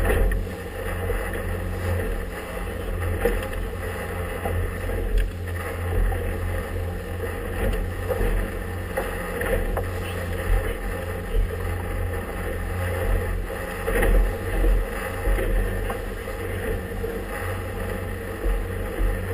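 Motorboat engine running steadily as an inflatable-tubed boat travels through choppy water, with wind buffeting the microphone and the hull thumping on the waves now and then.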